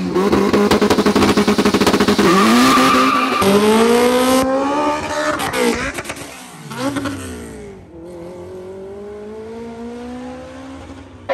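Street-race car engines held high with a rapid stutter at the line, then launching and accelerating hard through the gears, the pitch climbing and dropping at each shift. About six seconds in a car passes with a falling pitch, then the engines fade into the distance, with a faint engine still pulling near the end.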